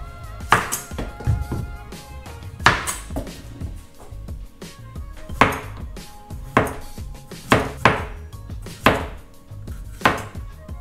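Chef's knife slicing a zucchini into thin rounds on a white plastic cutting board: about eight sharp knife strikes against the board at uneven intervals.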